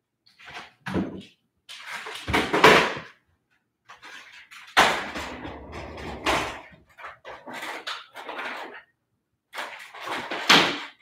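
Irregular knocks and rattles from an upright vacuum cleaner being taken out of a closet, wheeled over a hard floor and having its cord unwound, with the motor not yet running.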